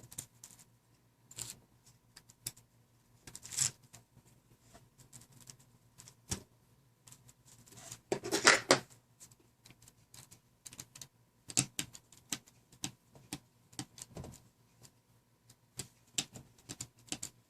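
Irregular small clicks and taps of metal tweezers and tiny screws against a mobile phone's frame as the loosened screws are picked out, with a few brief scrapes, the loudest about halfway through.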